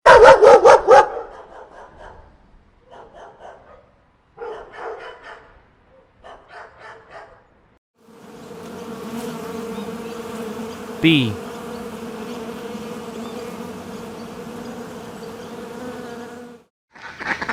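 A dog barking: a quick run of loud barks, then three shorter groups of quieter barks over the next few seconds. After a pause, a bee buzzes steadily for about eight seconds.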